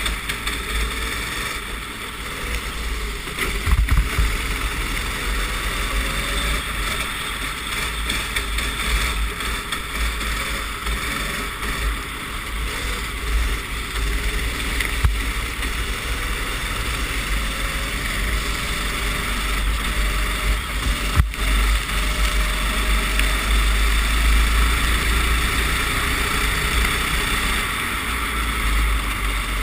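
Racing kart's engine running on a wet track, heard from an onboard camera with heavy wind buffeting on the microphone and a steady hiss of spray; the engine pitch rises and falls faintly through the lap. A single sharp click a little past two-thirds through.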